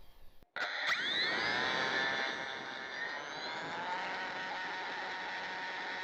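Electric motor and propeller of a model Cessna TTX spinning up at full throttle for takeoff. The whine starts suddenly about half a second in, rises in pitch over the next second, then holds steady.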